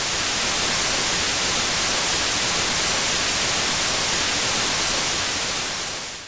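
Steady hiss of television static, a white-noise sound effect, fading out near the end.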